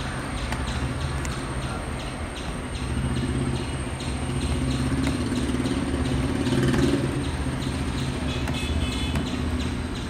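Helicopter flying past at a distance: a steady low rotor-and-engine drone that swells toward the middle and eases off again.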